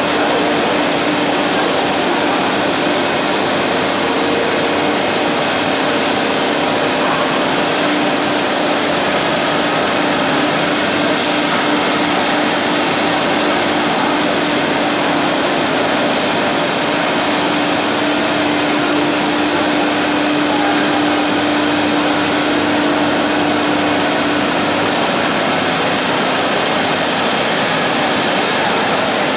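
CNC wood panel nesting router running over a board: a steady, loud whir of the spindle and its dust extraction, with a steady hum tone that fades away near the end.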